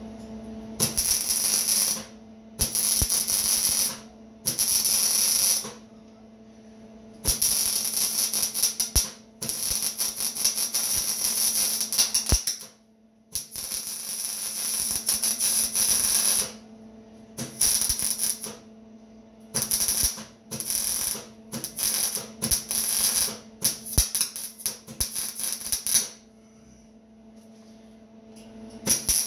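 Electric welding arc crackling in a series of bursts of half a second to three seconds each, with short pauses between, as steel frame pieces are welded. A steady low hum runs underneath.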